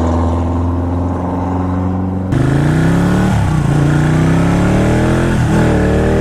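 Ducati 1199 Panigale's L-twin engine running steadily, then about two seconds in the throttle opens and it revs up through the gears, with two upshifts about two seconds apart, over wind rush.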